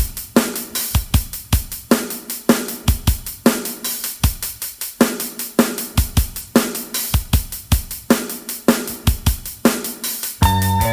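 Music: a drum-kit beat of kick, snare and hi-hat playing alone, with the rest of the band's sustained pitched notes coming in near the end.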